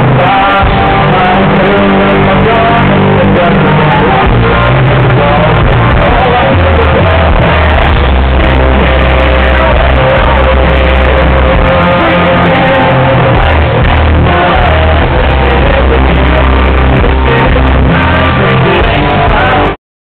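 Live country band playing a song with a singer, with guitars, drums and bass, recorded loud from the crowd. The music cuts off abruptly near the end.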